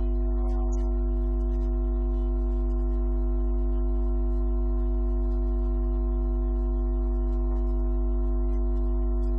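Background music: one sustained, unchanging chord, over a steady low hum.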